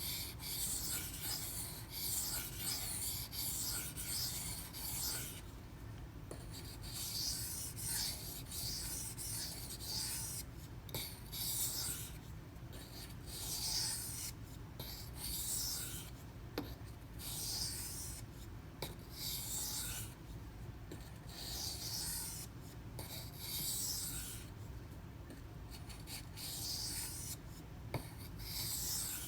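154CM steel knife blade stroked back and forth on a 1000-grit silicon carbide whetstone: a scraping hiss with each pass, in runs of strokes lasting a second or two with short breaks between them. A low steady hum sits underneath.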